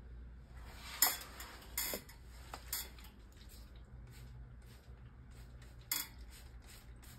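Small hard objects clinking and clattering as they are handled on a workbench: a sharp knock about a second in, more near two and three seconds in and again near six seconds, with lighter ticks between.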